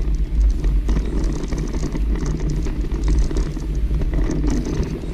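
Steady low rumble of wind buffeting the microphone of a camera on a moving bicycle, mixed with tyre and road noise.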